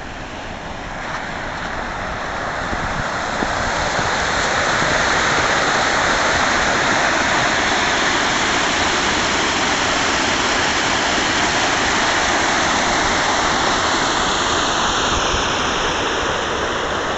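Fast-flowing creek rushing over rocks, a steady rush of water that grows louder over the first few seconds and then holds.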